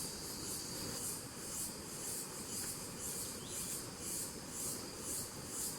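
Forest insects calling in a high-pitched pulsing chorus, about two to three pulses a second, over a steady thin high whine.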